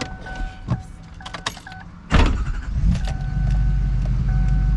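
Repeated two-note warning chime from the dash of a Chevrolet Silverado 2500HD, with a few clicks. About two seconds in, the truck's diesel engine cranks and fires with a loud burst, then settles into a steady low idle.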